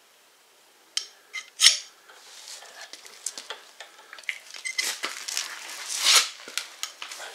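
Ferro rod being struck with a folding knife's blade to throw sparks onto fatwood shavings: sharp metal scrapes and clicks, two single strikes in the first two seconds, then a run of quicker scrapes, the loudest about six seconds in.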